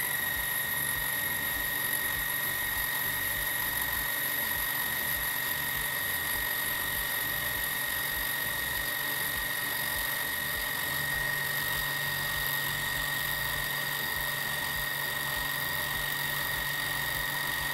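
Juki TL-2010Q sewing machine winding a bobbin at its fastest speed setting: the motor and bobbin winder run with a steady high-pitched whine.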